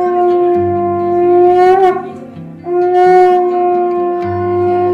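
Conch shell (shankha) blown in long, steady blasts at one pitch: one runs through the first two seconds and a second starts near the middle, each ending with a short upward lift in pitch.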